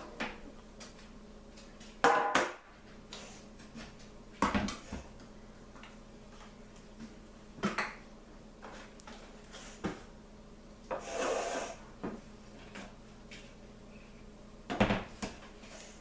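Kitchen things being handled and set down on a wooden countertop, a metal cake pan and an electric hand mixer among them: about six separate knocks and clatters a couple of seconds apart, with a longer scraping rustle about eleven seconds in. The mixer's motor is not running.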